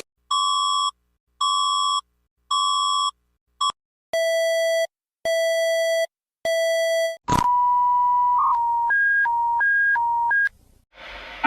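Synthetic emergency-alert beeps in a changing sequence: three short beeps and a brief blip, then three longer, lower beeps about a second each. Then a steady tone that breaks into beeps alternating between two pitches, stopping shortly before the end.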